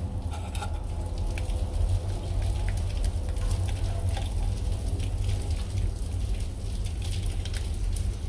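Rain falling and dripping, with many scattered drops tapping, over a steady low rumble.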